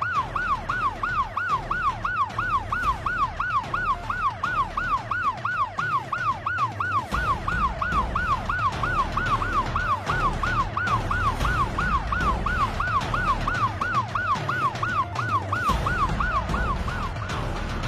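Ambulance siren on a fast yelp, its tone sweeping up and down about three times a second, fading out near the end.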